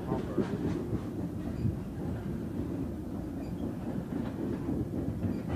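Freight train of tank cars rolling past: a steady rumble of steel wheels on the rails, with a few light clicks from the wheels over the rail joints.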